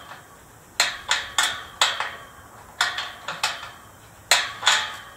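Hammer striking metal: about a dozen sharp taps in short clusters of two to four, each with a brief ring.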